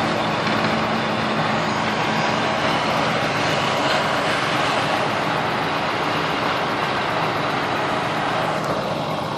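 Combine harvester running steadily in a bean harvest: an even, dense machine noise over a low engine hum.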